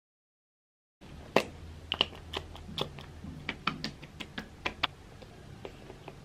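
Silence for the first second, then a string of sharp, irregular clicks and taps of hands and long fingernails handling a plastic skincare tube, over a low steady hum.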